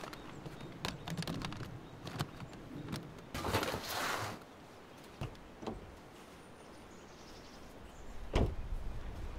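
A plastic storage bin being handled and pushed into the back of a pickup truck: scattered clicks and knocks, and about a second of scraping a little over three seconds in. Near the end comes one heavy thump, the truck's door shutting.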